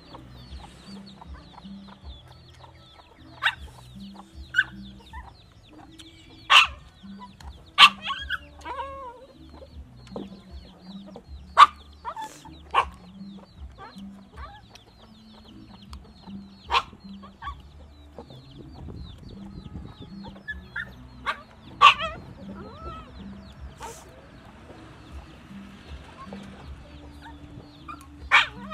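Chickens clucking, with short, sharp calls or clicks every few seconds over soft background music with a steady beat.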